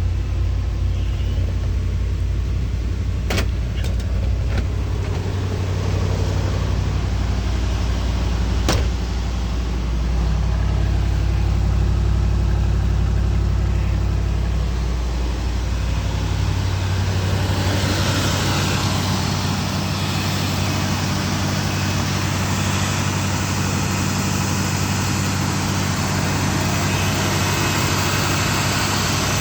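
Ford Thunderbird engine idling steadily after a cold start, with two sharp clicks in the first nine seconds. A bit over halfway through the sound changes: the deep low hum thins and a brighter hiss comes up, while the engine keeps running.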